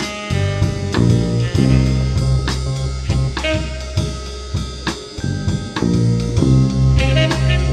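Lo-fi instrumental background music with a steady drum beat over bass and chords.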